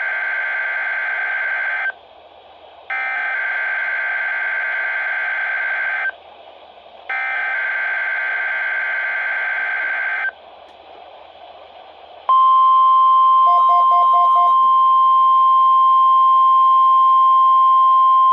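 NOAA Weather Radio weekly test alert tones heard through a weather radio's speaker. First come the end of one SAME digital header burst and then two more, each a raspy warbling data tone about three seconds long with a one-second gap between them. About twelve seconds in, the steady, high warning alarm tone starts and holds.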